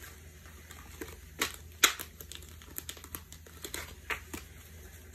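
Oracle cards being handled and shuffled: scattered light clicks and taps of card edges, with two sharper snaps about one and a half and two seconds in.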